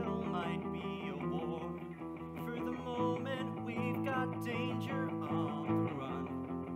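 Live pit band (guitar, keys, strings, reeds, bass and drums) playing the instrumental introduction to a musical theatre song, guitar prominent over sustained chords. The harmony shifts about three seconds in and again near the end.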